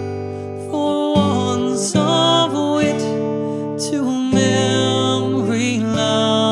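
Slow Irish folk ballad: acoustic guitar chords under a sung melody with long held, wavering notes.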